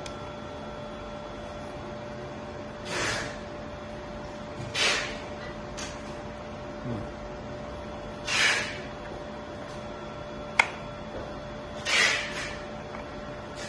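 Steady electrical hum, with five short scraping or rustling handling noises a few seconds apart and one sharp click.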